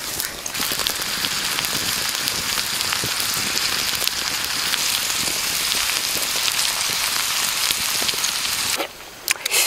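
Eggs and chicken offal sizzling on a hot stone slab over an open wood fire: a steady hiss with small pops and crackles. The sizzling cuts off suddenly near the end, followed by a few sharp clicks.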